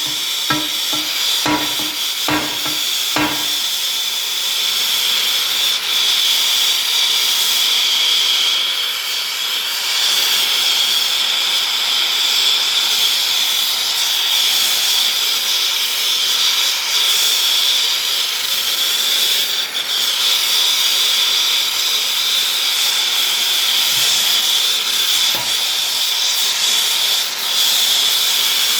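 About four ringing metal blows in the first three seconds, consistent with a hammer striking the bent steel wheel rim, then a steady loud hiss.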